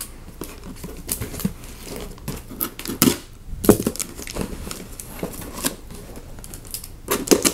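Cardboard shipping box wrapped in packing tape being handled and worked open by hand: irregular scrapes, rustles and taps of fingers on cardboard and tape.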